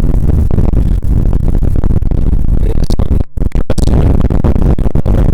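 Strong wind buffeting the microphone: a loud, steady low rumble, with the sound cutting out for an instant a few times a little past the middle.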